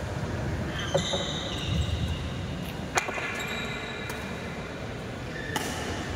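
Badminton rackets striking a shuttlecock in a rally: three sharp hits, roughly two to two and a half seconds apart, with short high squeaks between the first two.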